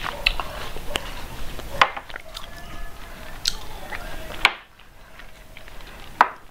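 Close-miked eating sounds: liquid sipped from a small glass bowl, then chewing and swallowing with wet mouth clicks. A few sharp knocks come through, one as the glass bowl is set down, and the sound gets quieter about halfway through.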